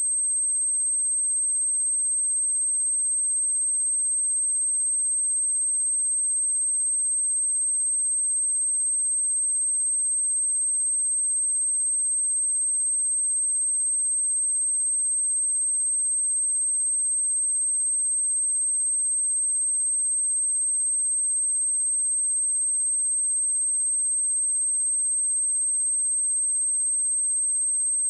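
A pure 8321 Hz sine-wave test tone, a single steady high-pitched whistle held at a constant level, as used to test speakers or to shake dust and water out of a phone speaker.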